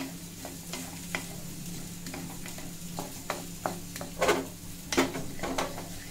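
Wooden spatula scraping and stirring roasted coriander seeds around a metal kadhai in a little oil, an irregular run of scrapes and seed rattles with a light sizzle. The loudest scrapes come about four and five seconds in, over a low steady hum.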